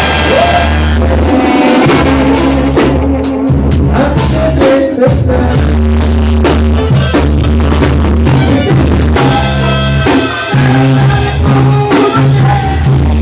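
Loud music with a drum kit and a heavy bass line, with clusters of drum hits in the middle and again near the end.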